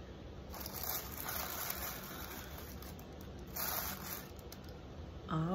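Packaging rustling in three short spells as a gift box is unpacked by hand. A brief voice sound comes near the end.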